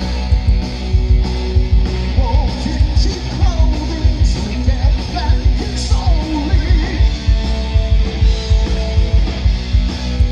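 1980s-style hard rock band playing live through a PA: distorted electric guitars, bass and a steady drum beat, with singing over them.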